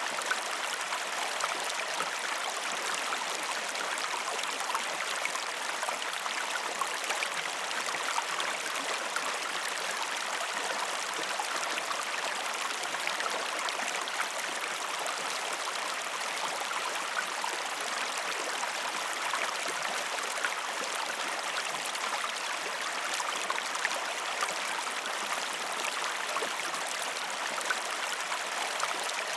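Waterfall: a steady rush of falling and splashing water, with fine spatter through it.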